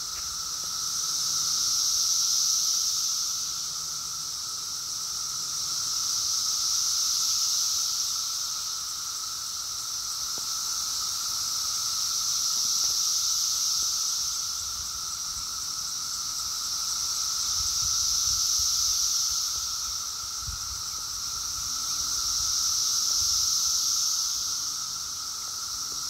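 A dense chorus of periodical cicadas (Brood X) droning, a high-pitched buzz that swells and fades in waves about every five seconds, over a steady lower drone.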